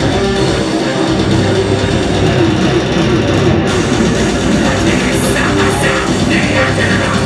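Melodic death metal band playing live, with electric guitars and a five-string bass guitar to the fore.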